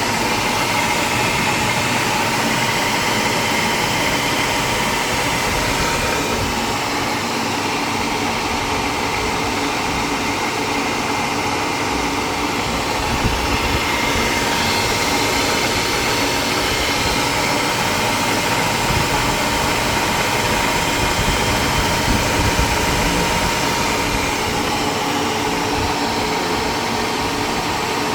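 CQ250 metal lathe running steadily under its single-phase electric motor, with a constant whine from the motor and gearing.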